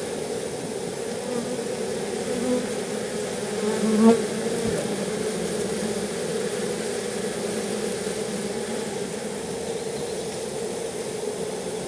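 Steady buzzing hum of many honeybees around an opened hive during a frame inspection, with a louder buzz swelling briefly about four seconds in.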